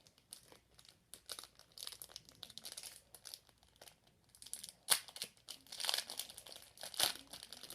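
Plastic packaging crinkling and rustling as it is handled and pulled open, a run of irregular small crackles with sharper, louder crackles about five and seven seconds in.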